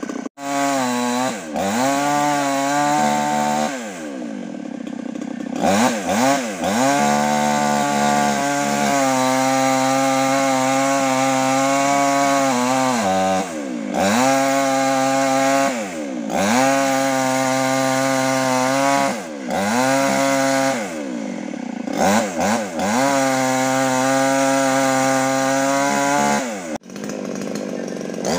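Mini chainsaw cutting mango tree branches. It speeds up and slows down in about six bursts of a few seconds each, holding a steady high pitch during each cut.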